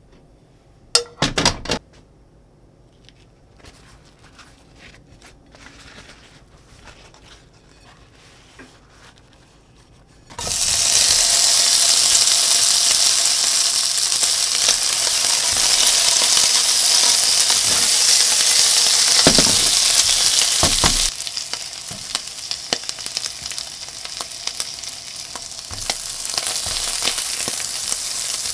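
Pieces of canned boiled mackerel hit hot oil in a nonstick frying pan and start sizzling loudly and suddenly about a third of the way in. About two-thirds in the sizzle drops to a softer, steady frying sound, with a spatula scraping as the pieces are turned. A few sharp knocks come about a second in, before the frying starts.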